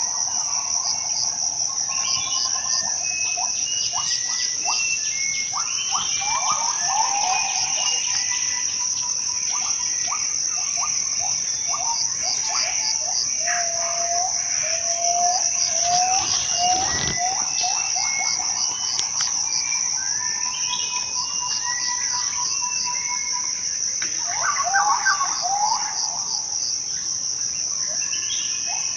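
Borneo rainforest ambience: a steady, high-pitched drone of insects with many bird calls over it, chirps and whistles, including a run of repeated short notes about halfway through and a busier burst of calls near the end.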